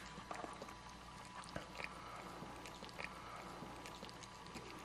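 A mother cat eating the placenta after giving birth: faint scattered clicks of chewing and licking over a low steady hiss.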